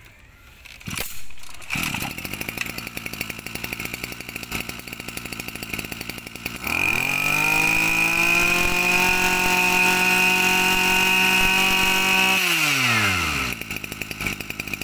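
A Tanaka backpack brush cutter's small 27 cc two-stroke engine starts on the pull about two seconds in and idles. About seven seconds in it is revved up, held at high speed for about five seconds, then falls back to idle.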